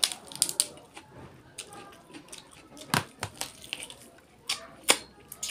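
Close-miked wet eating sounds from a person eating duck curry with the hands: tearing meat off the bone, chewing and lip smacks. Sharp, irregular clicks, the loudest about three seconds in and again near five seconds.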